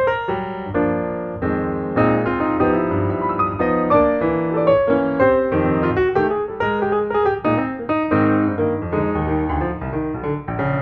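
Background piano music with a steady stream of notes.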